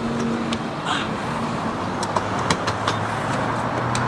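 Steady rumble of vehicles and traffic, with a low hum and a few light clicks scattered through.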